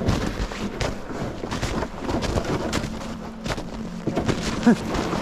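Footsteps of people walking outdoors, an irregular run of short crunching steps, with a faint steady low hum and one brief rising squeak about four and a half seconds in.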